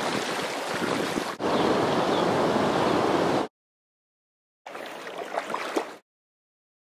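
Rushing river water, a steady hiss that cuts off abruptly about three and a half seconds in; after a second of dead silence it comes back quieter for about a second and a half, then cuts out again.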